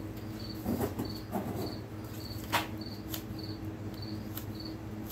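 A cricket chirping steadily, about two short high chirps a second, over a low steady hum. A few light clicks and knocks come through, the sharpest about two and a half seconds in.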